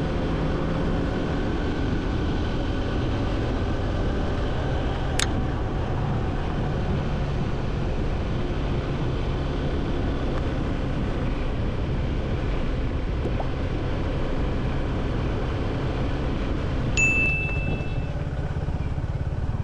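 Motorcycle engine running steadily under way, with road and wind noise, from the rider's seat. A single sharp click comes about five seconds in, and a short bright chime sounds near the end.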